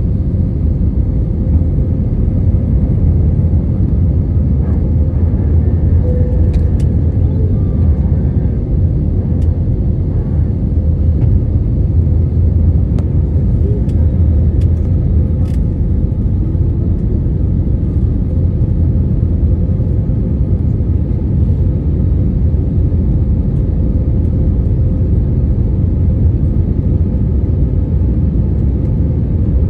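Airbus A321neo airliner's jet engines and airflow, a loud, even rumble with a steady hum that holds unchanged throughout.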